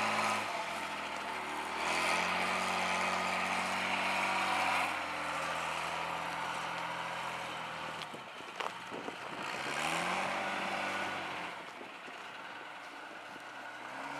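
A motor vehicle engine running. Its pitch climbs at about two seconds and again near ten seconds and drops back in between, as it picks up speed and eases off. A few short knocks come around eight to nine seconds in.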